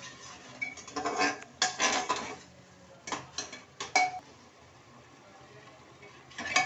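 A spoon scraping and clinking against the inside of an aluminium pressure cooker while stirring thick masala paste, in several short strokes, with a sharp knock near the end.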